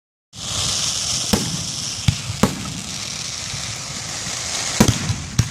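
Fireworks going off: a steady hiss that starts just after the beginning and slowly eases, with five sharp bangs scattered through it.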